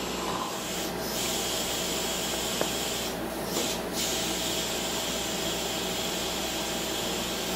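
A steady hiss over a low equipment hum, with brief drop-outs about a second in and twice around three to four seconds in.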